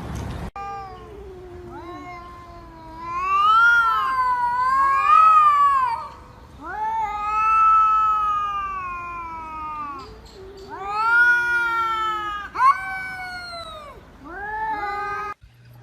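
A cat yowling in about five long, drawn-out wails that rise and fall in pitch.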